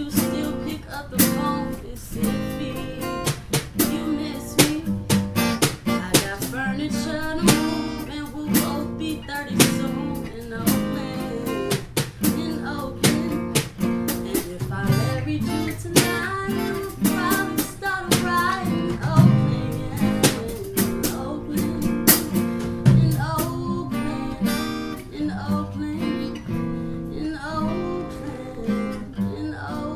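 Acoustic guitar strummed steadily while a woman sings a melody without clear words.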